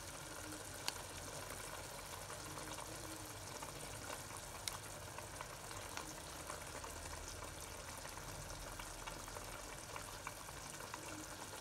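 Curry masala of onions, spices and milk cooking in a pot with a faint, steady sizzle and bubble, broken by a couple of light clicks.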